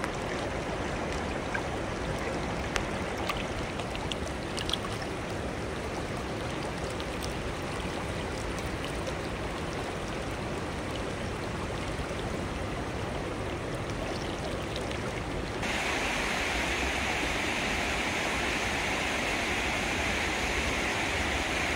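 Steady rush of river current, with a few faint ticks in the first few seconds. About three-quarters of the way through, the rush becomes suddenly louder and hissier.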